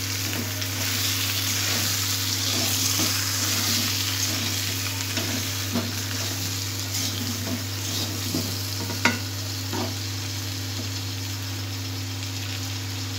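Fried potato chunks sizzling in hot oil in a metal kadai while a spatula stirs them, mixing in the powdered spices. The scraping comes with light knocks against the pan and one sharper knock about nine seconds in, over a steady low hum.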